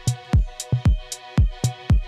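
Electronic background music: a steady drum-machine beat of deep kick drums, each falling in pitch, with crisp higher hits, over held synth chords.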